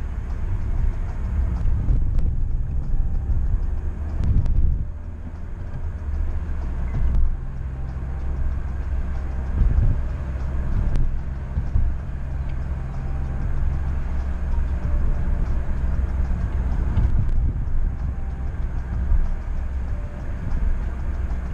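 Road noise inside a moving 2011 Honda Civic, from its 1.4-litre petrol engine and its tyres on the road: a continuous low rumble. The level dips briefly about five seconds in, and a steady engine note holds for several seconds after that.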